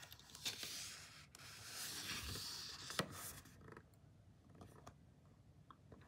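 Faint rubbing and brushing of a hand against the paper pages of an open picture book, with a light tap about three seconds in, then only faint small ticks.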